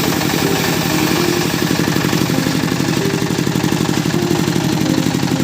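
Engine of a wood-cutting saw running steadily, loud, with a rapid even pulsing beat.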